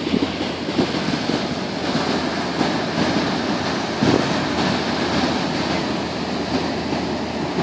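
Ocean surf and wind buffeting the microphone: a steady rushing noise with uneven, gusty low rumbles.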